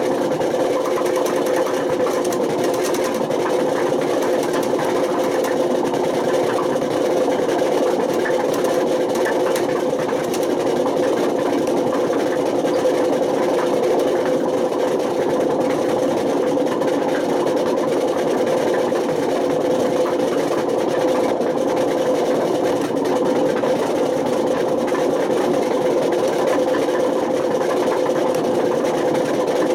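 Panasonic NA127VB6 washing machine running with badly worn drum bearings: a loud, steady mechanical drone with a constant pitch. This is the sound of failed bearings, which have damaged the drum spider and worn the motor.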